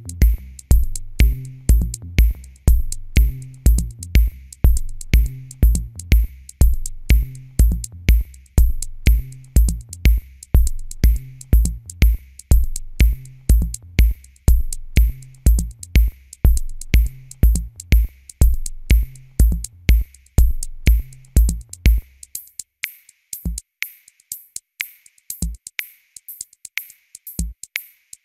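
Background electronic music with a steady drum-machine beat and bass line. About 22 seconds in, the bass drops out, leaving ticking hi-hats and a single kick every two seconds.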